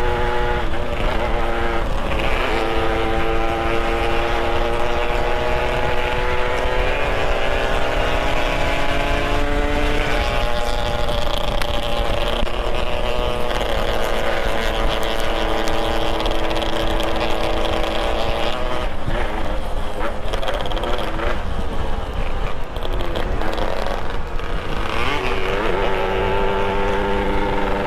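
Motorcycle engine pulling under load, its pitch climbing slowly, then dropping suddenly about ten seconds in as if on a gear change, holding steady, turning uneven for a while and climbing again near the end, over a steady low rumble.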